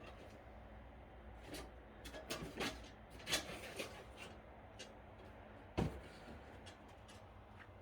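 A scatter of light knocks and clicks, then one sharper thump about six seconds in, over a faint low room hum.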